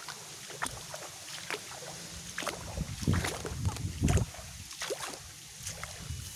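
Footsteps through wet mud and swamp grass, with scattered rustling and snapping of stems and two heavier low thuds about three and four seconds in.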